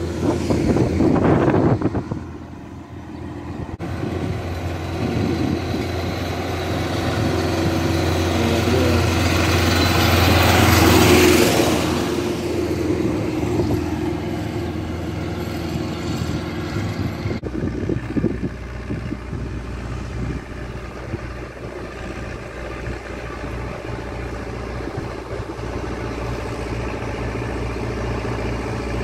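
Farm tractors towing trailers drive past on a road, their engines running steadily. The engine and road noise swells as one passes at the start and again around eleven seconds in.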